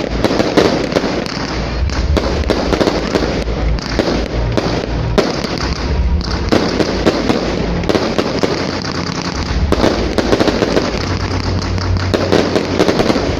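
Fireworks display going off in a dense, unbroken run of bangs and crackling, many shells bursting every second.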